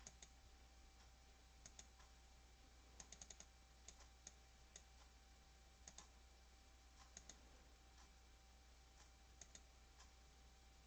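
Faint computer mouse clicks, single and in quick runs, including about four in rapid succession around three seconds in, over a steady low hum.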